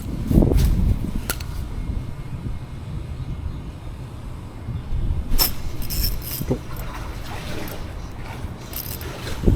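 Wind rumbling on the microphone, with scattered clicks and knocks of handling.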